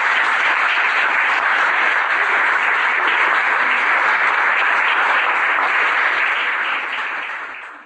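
Audience applauding at the end of a talk, fading away over the last second.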